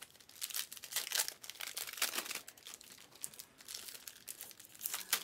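Basketball trading card packs being opened by hand: the wrappers crinkle and tear and the cards rustle, in quick, irregular strokes.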